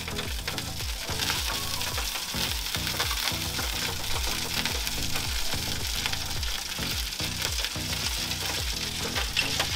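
Lamb roast sizzling in the hot convection tray of a Weber Baby Q gas grill as it is basted with olive oil and herbs: a steady sizzle. Background music with a steady bass beat plays underneath.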